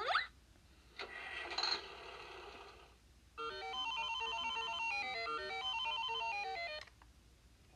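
Electronic toy playing sound effects through its small speaker: a short noisy rush, then a quick beeping electronic tune of rapid stepped notes lasting about three seconds, which stops suddenly.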